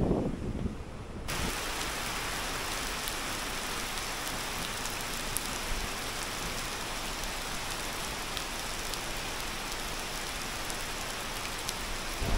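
A steady, even hiss that starts abruptly about a second in and holds level, with occasional faint ticks through it.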